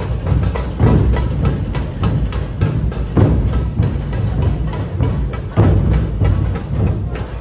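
Loud, bass-heavy music with hard percussive hits, blasting from a large DJ speaker set-up in a street procession.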